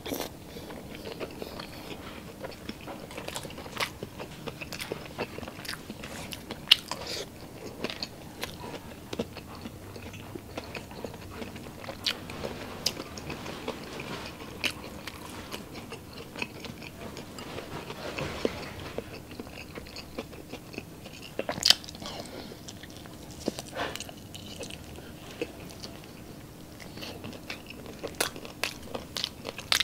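Close-miked mouth sounds of a person chewing and biting grilled street-food skewers, with wet chewing throughout and frequent sharp crunches and clicks, the loudest a little under 7 seconds and about 22 seconds in.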